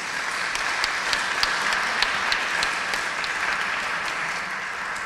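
Small audience applauding steadily, a few sharp individual claps standing out, easing off slightly toward the end.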